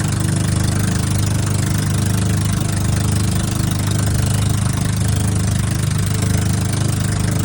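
An engine running steadily at an unchanging low pitch, with no revving.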